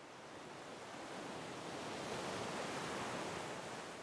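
Rough sea: waves and surf as a steady rush of noise that swells to its loudest around the middle and eases toward the end.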